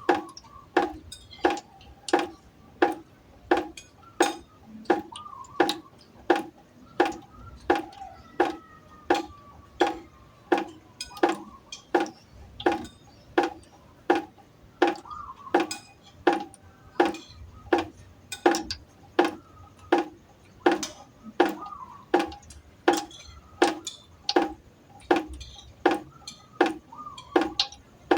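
Water drops falling one by one into a pot, each landing as a short ringing plink, in an even rhythm of about three drops every two seconds.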